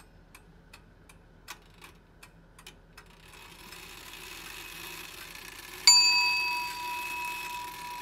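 Steady light ticking at about three ticks a second, then a small bell struck once, ringing and fading for about two seconds before cutting off.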